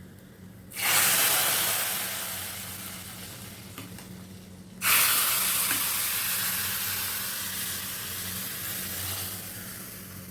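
Food dropped into hot oil in a pan, sizzling loudly at once and slowly dying down; it happens twice, about a second in and again about five seconds in.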